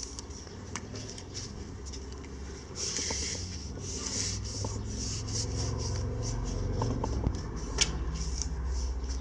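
Hands rubbing and smoothing paper stickers flat onto a sheet of painted paper: a soft, dry swishing in repeated short strokes, with one sharp tap near the end.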